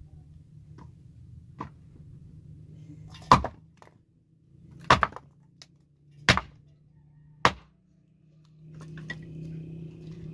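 Hatchet chopping firewood on a wooden block: four sharp chops about a second and a half apart, after a couple of light knocks.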